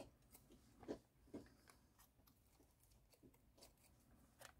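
Near silence, with a few faint taps and rustles of small paper cutouts being handled; the two clearest come about a second in and shortly after.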